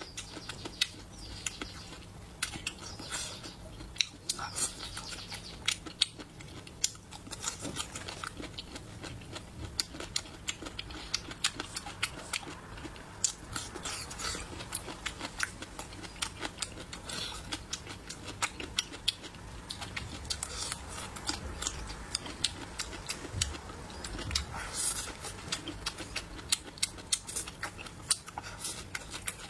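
Close-miked eating sounds: biting and chewing with many crisp, wet mouth clicks at a quick, irregular pace, beginning with a bite into a pickled green chili pepper.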